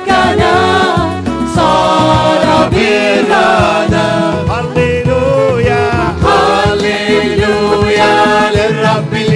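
A woman singing a Christian worship song with vibrato over a steady instrumental accompaniment with bass.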